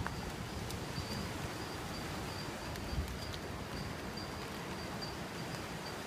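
A steady, high insect trill over an even hiss of rain falling in the forest, with a soft thump about three seconds in.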